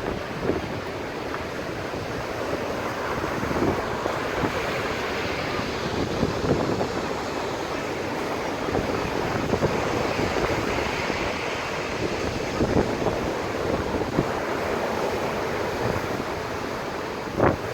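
Storm-driven waves surging and wind buffeting the microphone, a steady rushing noise with no clear engine or rotor tone. A brief louder hit comes near the end.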